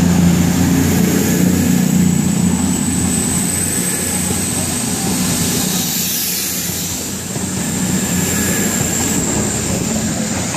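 CrossCountry Class 220 Voyager diesel-electric multiple unit pulling out, its underfloor diesel engines working under power with a steady high whine. The deep engine note weakens after about two to three seconds as the cars slide past, and the sound swells again near the end as the rear cab passes.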